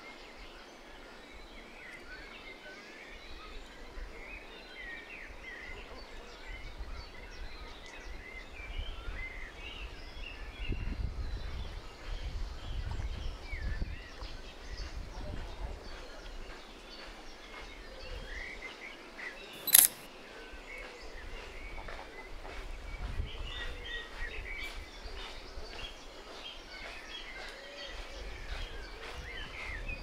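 Small birds chirping and singing all through, with bouts of low rumble underneath. One sharp click about twenty seconds in is the loudest sound.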